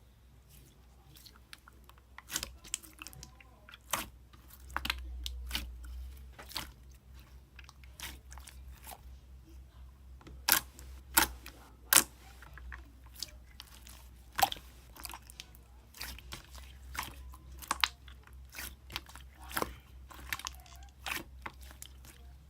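Slime being squeezed and pressed by hand, giving irregular sticky clicks and pops, several of them sharp and loud.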